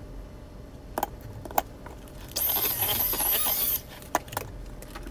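Electric hand mixer switched on for a short burst of about a second and a half, halfway through, with its beaters in thick muffin batter. Before and after it come a few sharp taps and scrapes of a spatula and the beaters against a glass mixing bowl.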